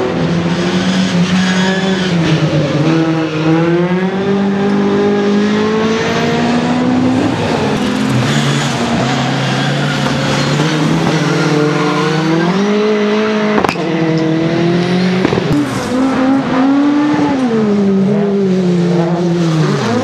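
Rallycross cars' engines revving hard at racing speed, the pitch climbing and dropping again and again with throttle and gear changes as the cars power through corners. A single sharp crack comes about 14 seconds in.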